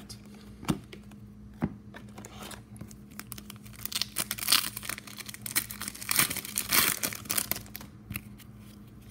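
Upper Deck hockey card pack wrapper being torn open and crinkled by hand: a few light clicks, then crackling tearing and crinkling from about three seconds in for about five seconds.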